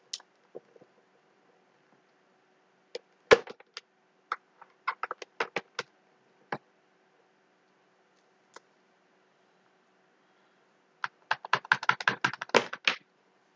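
Computer keyboard keys clacking in irregular bursts: a few scattered presses, a short run, then a fast flurry of typing near the end.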